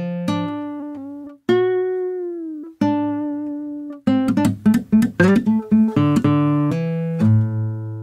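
Spectrasonics Omnisphere's Nylon Sky sampled nylon-string guitar, on its 'Legato Blues' preset, playing a bluesy single-note line. About a second and a half in comes one held note that bends in pitch, then a quick run of notes.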